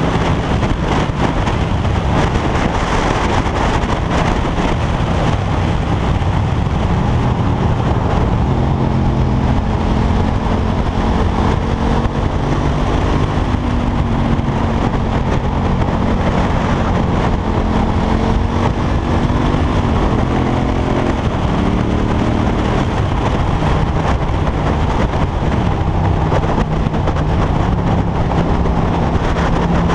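KTM 1290 Super Duke R's V-twin engine running under way, its pitch rising and falling with the throttle and settling steady near the end, over a steady rush of wind and road noise.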